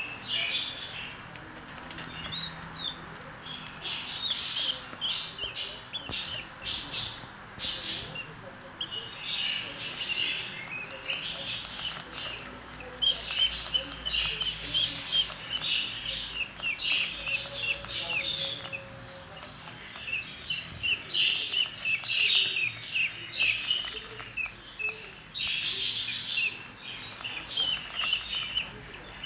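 Budgerigar chicks chirping in a busy chatter of short, high peeps that come in repeated bouts.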